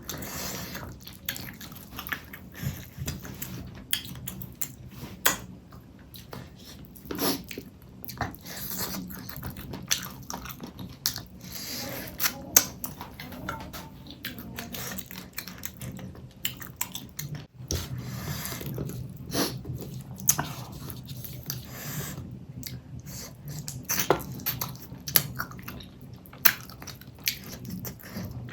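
Close-miked mouth sounds of eating fish curry with rice: wet chewing and lip smacks, heard as irregular sharp clicks.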